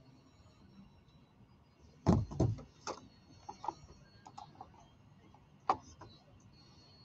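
Handling noise at a studio desk close to the microphone: a cluster of loud knocks and clicks about two seconds in, lighter clicks after, and one more sharp click near six seconds.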